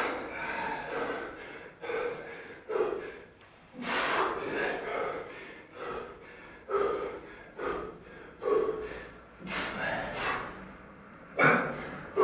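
Heavy breathing from physical strain: sharp exhales and gasps about once a second, a few of them louder, as a man climbs around the body of another who holds him up.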